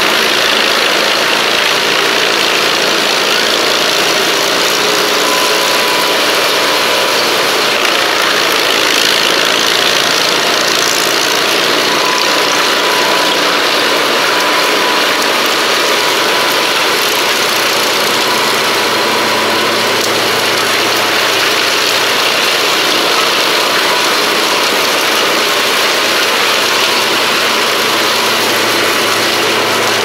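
Truck-mounted wood chipper running steadily under load, chipping brush and branches fed in by a crane grapple, its engine and cutter making one continuous loud noise.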